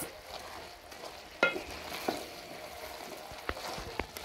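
Wooden spoon stirring a hot aluminium pot of pumpkin leaves and smoked beef, with a faint steady hiss from the cooking food and a few sharp knocks of the spoon against the pot.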